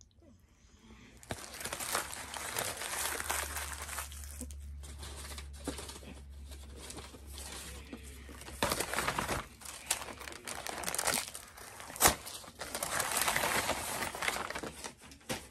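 Food packaging being crumpled and rustled close to the microphone, crinkling on and off with small clicks and one sharp tap late on.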